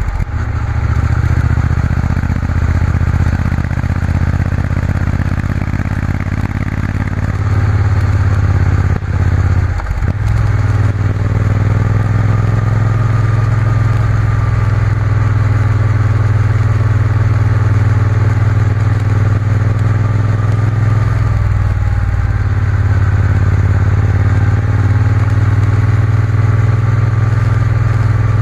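Triumph Bonneville T120 parallel-twin engine running steadily under way, with a brief dip in the engine note about nine to ten seconds in.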